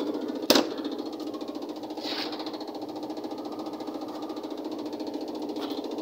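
Whirlpool top-load automatic washing machine spinning its drum in the spin-dry cycle: a steady hum with a fast, even rattle. About half a second in, the glass lid snaps shut with a single sharp clack.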